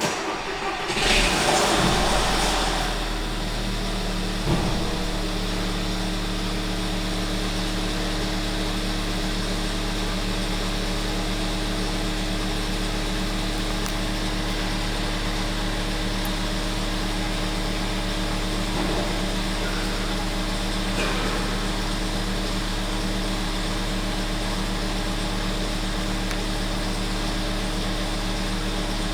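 1.4 TSI 160 petrol engine cold-starting: it cranks and catches, runs up louder for about two seconds, then settles into a steady idle. The owner puts the noise down to the timing chain.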